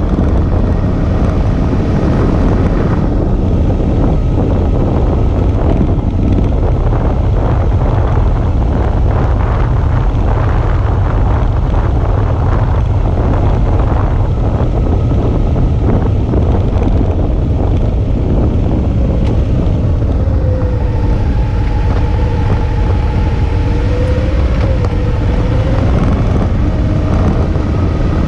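Suzuki V-Strom 650's V-twin engine running under way, with heavy wind rushing over the camera's microphone. From about twenty seconds in, the engine note rises and falls for several seconds.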